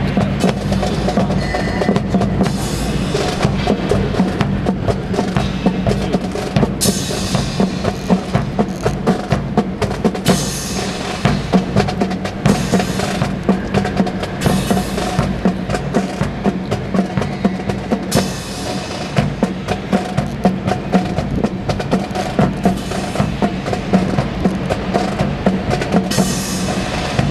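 March music with a steady drum beat over held horn-like notes.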